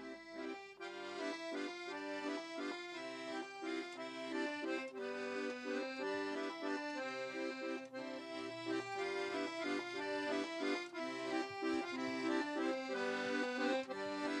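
Piano accordion playing a traditional folk tune, melody and chords together, in quick-changing notes that come in fully about a second in.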